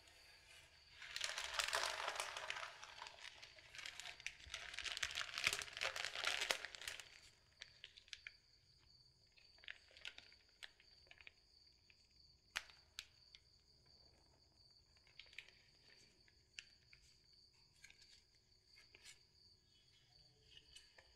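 Clear plastic flower wrapping crinkling loudly for several seconds as a bouquet is picked up and handled, then only a few light crackles and rustles as it is held and its card is handled.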